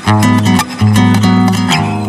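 Background music: a bright acoustic guitar strummed and plucked over a steady bass line.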